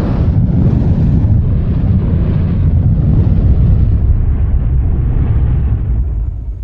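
A loud, deep rumbling noise like an explosion or eruption sound effect, sustained for several seconds and tailing off near the end.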